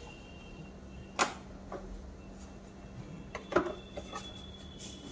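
Hard plastic parts of a Kärcher WD6 Premium vacuum cleaner's housing clicking and knocking as they are handled and fitted together: a sharp knock about a second in, and a quick cluster of clicks about three and a half seconds in.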